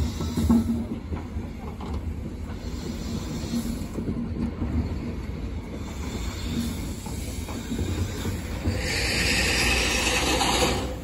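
A diesel locomotive passing close by with its engine running and a steady low rumble, followed by a flat wagon. About nine seconds in, a loud high-pitched screech from the wheels rises over it and stops just before the end.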